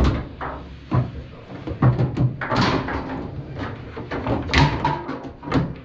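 Foosball table in play: the ball striking the players' figures and the table walls, and the rods knocking, in sharp irregular knocks a second or so apart.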